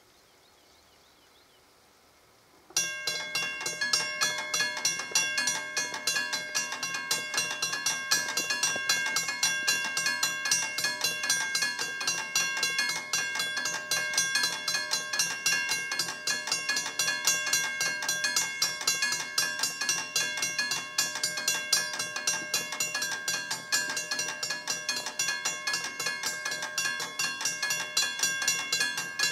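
A level crossing's warning bell starts suddenly about three seconds in and rings continuously with rapid, even strikes of a high metallic tone, signalling that a train is approaching. Before it starts there is only faint outdoor background.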